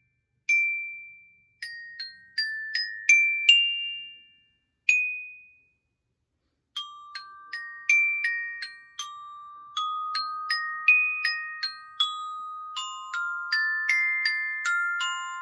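Glockenspiel notes struck one at a time: a few slow, spaced notes that ring out and fade, a brief pause, then from about seven seconds in a quicker melodic run whose notes ring on over each other.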